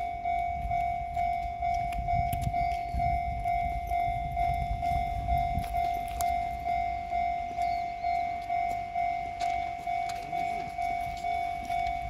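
Japanese railway level-crossing warning bell ringing, a steady repeating electronic ding at about two strokes a second. A low rumble runs under it for a few seconds, starting about two seconds in.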